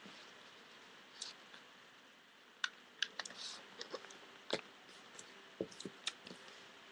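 A sheet of paper being folded and creased by hand on a tabletop: scattered sharp clicks and crackles of the paper, loudest about two and a half to three seconds in.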